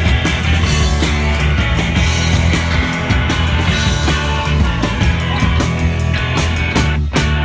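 Live rock band playing, with a heavy bass and a steady drum beat; the band stops for a short break just before the end.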